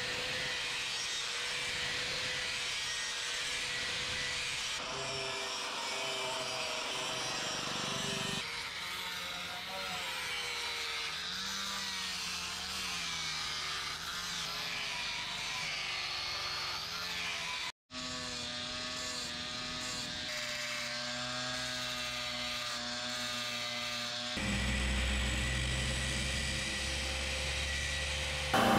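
Electric angle grinder running and grinding the steel of a twisted-rebar dagger, its motor whine wavering in pitch as the disc bites under load. The sound cuts out for an instant about 18 seconds in and gets deeper and heavier about 24 seconds in, while the disc cuts through rebar.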